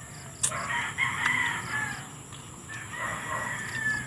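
Rooster crowing twice, each crow lasting about a second and a half, with a single sharp click just before the first crow.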